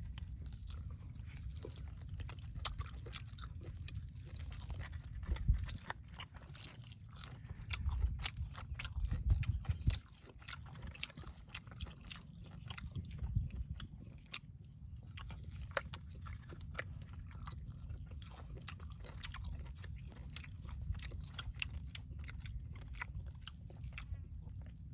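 Grilled chicken being eaten close to the microphone: a continuous run of quick wet clicks from biting, chewing and tearing meat off the bone. Heavier low rumbles rise now and then, most strongly about five seconds in and again around eight to ten seconds in.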